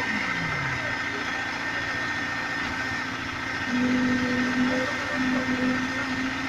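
Concrete pump truck running steadily while pumping concrete through its boom, with a steady mechanical hum and whine; a low tone falls briefly at the start and the engine note strengthens a little over halfway through.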